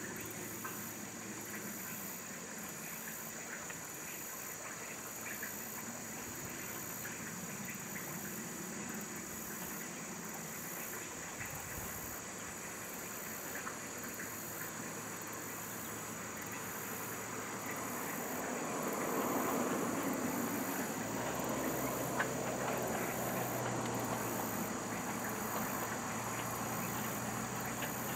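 Chinese-built JS-class 2-8-2 steam locomotive working toward the listener. Its running and exhaust noise grows louder about two-thirds of the way in, and a low steady hum joins near the end.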